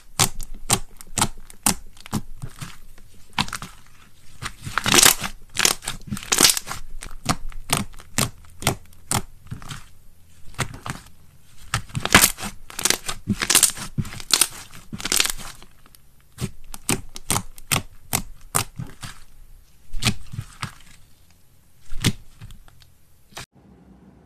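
Hands pressing, folding and pulling apart a thick pink slime, giving a dense run of irregular sharp crackles and pops, some drawn out into tearing sounds. The crackling stops near the end.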